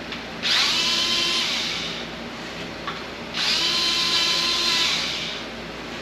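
Cordless drill run twice in bursts of about two seconds, each starting with a rising whine as the motor spins up, then a steady whir, working on the engine.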